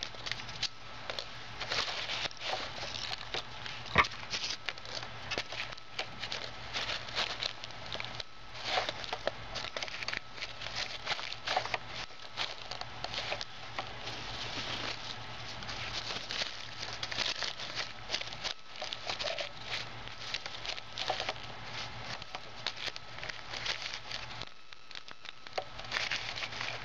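A crinkly wrapper being crushed in a hand-worked Lego brick compactor: irregular crinkling and crackling with plastic brick clicks, and one sharp click about four seconds in.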